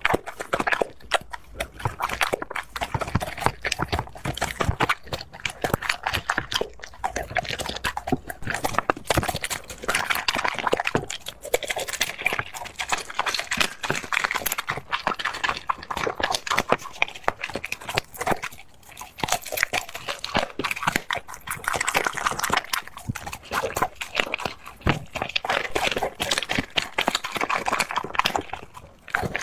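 A pet eating noisily: a long run of rapid, wet chewing and crunching clicks, coming in uneven spells.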